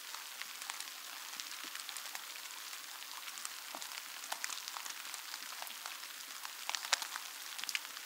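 Steady rain falling, an even hiss with many sharp ticks of single drops and a few louder drops near the end.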